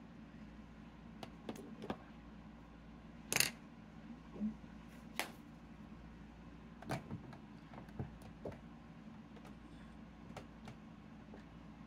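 Scattered light clicks and knocks of small makeup items being handled and set down, the loudest about three and a half seconds in, over a faint steady hum.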